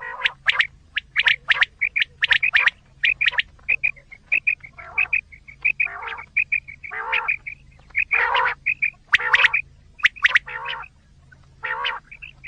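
Recorded quail calls played as a hunting lure: rapid runs of short, high chirps alternate with harsher, lower calls, repeating with no break.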